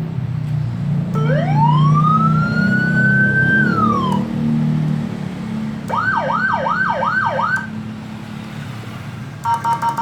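A 12-tone electronic police-escort siren module cycling through its tones. First comes one long wail that rises, holds and then drops. After a pause there is a quick run of five rising whoops, and near the end a short pulsed beep, all over a steady low hum.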